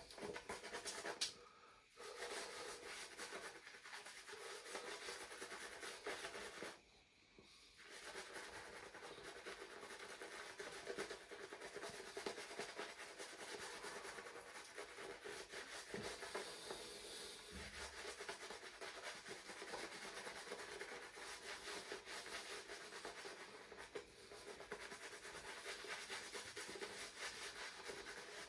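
Omega Professional shaving brush working shaving cream into a lather, a steady brushing with short pauses about two and seven seconds in.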